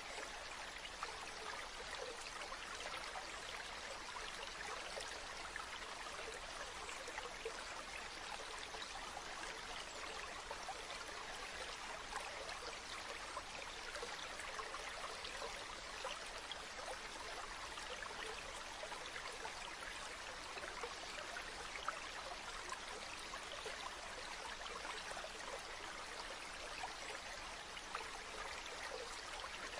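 Small stream flowing steadily over stones, an even rush of water.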